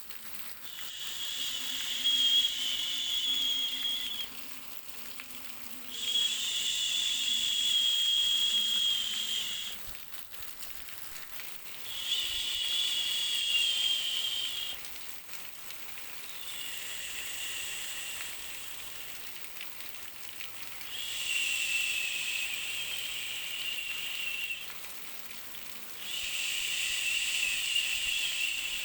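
Baby white-noise track: a hissing 'shh' sound in long pulses, about six in a row, each lasting three to four seconds, with a second or two of softer hiss between them.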